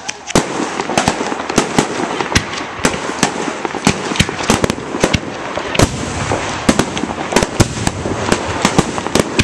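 Fireworks going off in quick succession: sharp, irregular bangs, several a second, over a continuous crackling hiss of launching rockets and fountains.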